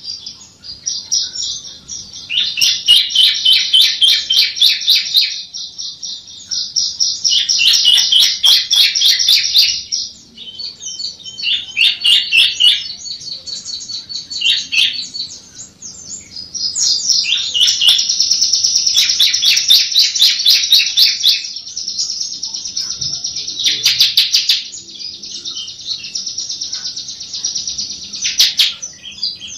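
Bar-winged prinia (ciblek) singing: loud, fast trilled phrases of a few seconds each, several sweeping upward in pitch, with short pauses between them.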